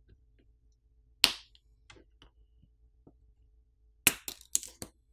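Sharp click of a flex-cable connector snapping off the Samsung Galaxy S21's main board under a plastic pry tool, about a second in, then a quick run of four or five clicks and taps near the end as the cable is unclipped and lifted away.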